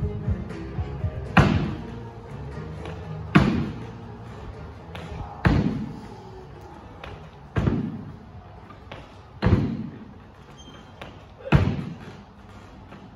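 Box jumps on a wooden plyo box: six heavy thuds of feet landing, about one every two seconds, each with a short echo. Background music plays underneath.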